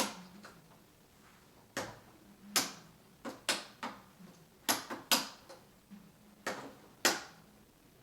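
Hard plastic clicks and knocks, about nine of them and irregularly spaced, from handling a Hoover Insight upright vacuum while its setting is changed; the motor is off.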